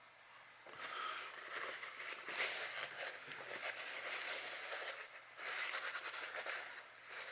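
Rustling, crinkling handling noise with many small clicks as hands handle the disassembled airgun parts, starting about a second in and running until just before the end.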